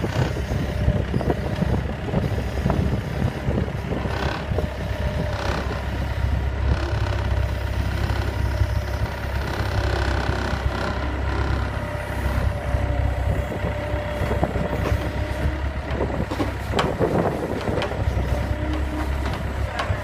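Engine of an orange compact loader running steadily, with a constant low rumble and a few scattered knocks, as its loader hoists a downed cow's hindquarters with hip clamps.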